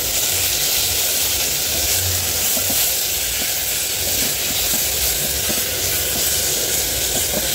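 Chopped tomatoes, onions, green peppers and carrots sizzling in hot oil in an aluminium pot, stirred with a wooden spoon: a steady frying hiss.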